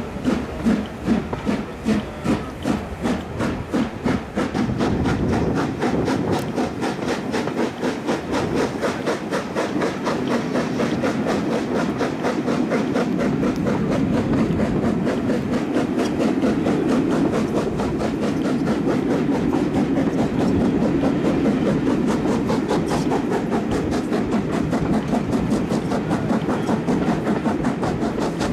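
Steam locomotive hauling carriages, heard from a carriage window: its exhaust chuffs in clear even beats, about two a second, then after about four seconds the beats run together into a steady rhythmic rush with the rattle of the carriages on the rails.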